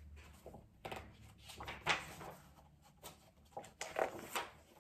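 A picture book being opened and its pages turned: a few faint, short rustles and soft knocks of paper and cover being handled.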